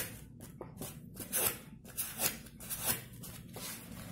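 Dry, painted corn husks rustling as hands gather and handle them, in several short rustles.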